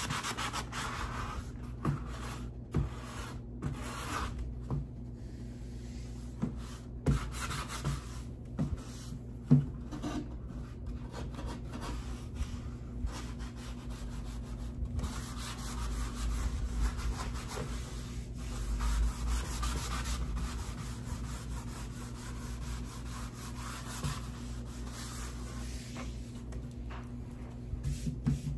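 Sandpaper rubbing over a wooden dollhouse body: uneven dry scratching strokes, broken by a few light knocks as the wood is handled.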